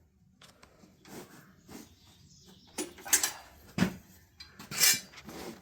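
Breaker bar and socket working a bolt loose on an engine: a few metallic clicks and knocks, then a louder grating scrape near the end.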